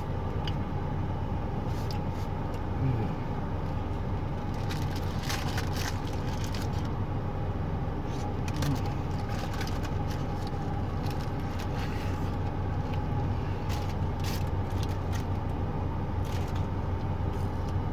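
Steady low hum of an idling car engine, with scattered small clicks and rustles over it.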